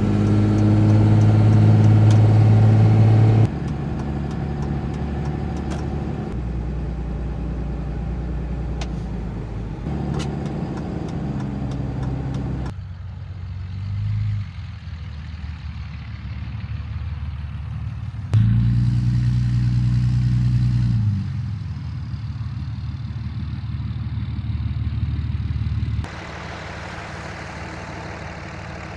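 Dodge Ram 2500 pickup engine running while the truck drives and idles in a parking lot, its pitch and loudness jumping abruptly several times between steadier stretches.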